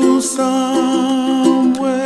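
Background music: a song with a held sung note over plucked ukulele-like strings.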